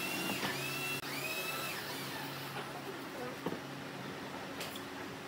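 Workshop power tool and machinery hum, with a tool's whine dipping sharply and recovering a couple of times in the first two seconds, then a few light knocks of wood being set on wood.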